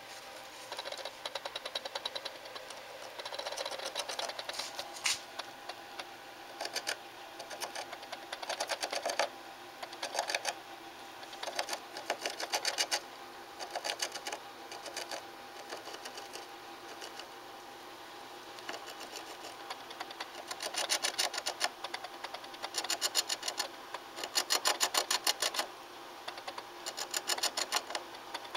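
A small animal scratching and digging inside a wall, in rapid scratchy bouts about a second long that come every second or two. There is a lull in the middle, and the bouts are louder and closer together near the end.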